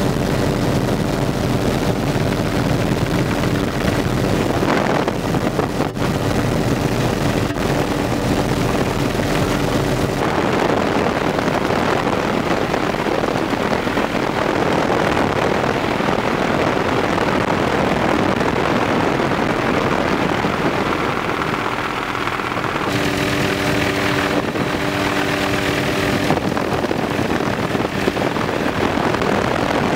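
Helicopter in flight heard from inside the doorless cabin: a steady engine and rotor drone under heavy wind rush on the microphone. The sound shifts abruptly about ten seconds in and again a little past twenty seconds.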